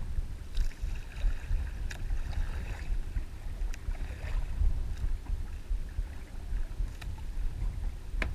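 Outdoor wind buffeting the microphone in an uneven low rumble, with a light hiss and a few sharp clicks.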